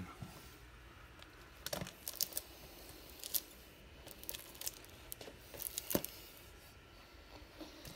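Shrink-wrapped plastic Blu-ray cases being handled and shifted about: scattered faint crinkles and light clicks, the sharpest about six seconds in.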